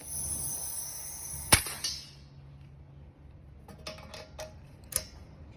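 Small metal clicks and clinks of air-line quick-connect fittings being handled, with one sharper click about a second and a half in and several lighter ones near the end. A steady high-pitched sound fades out about two seconds in.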